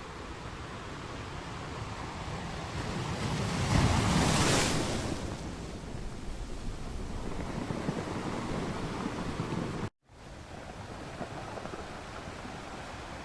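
Ocean surf: a wave swells and breaks loudly about four seconds in, then a wash of lighter surf. Near the end the sound cuts out completely for an instant and comes back.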